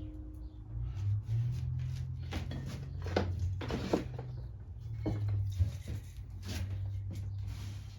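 Several short hissing sprays of carburetor-cleaner aerosol blown into a lawn mower carburetor's jets and passages, over a steady low hum.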